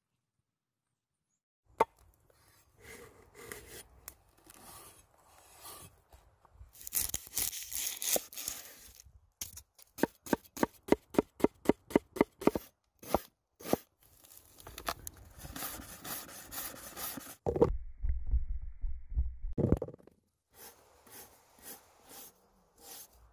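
Kitchen-knife work on a wooden cutting board: a quick, even run of chops through an onion around the middle, and spaced slicing strokes through a potato near the end. In between there are handling noises and a stretch of low rumbling noise.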